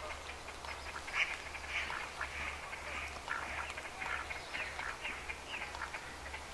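Swans calling: a string of many short, nasal calls, one after another, over a low steady hum.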